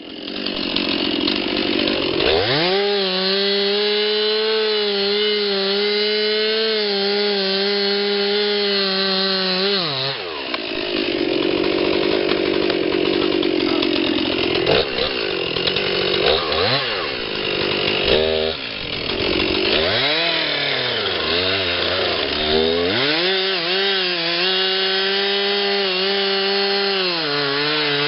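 Chainsaw engine running at high revs: it climbs to full speed about two seconds in and holds steady. Through the middle its pitch repeatedly sags and recovers as the chain cuts into wood, then it runs high again near the end.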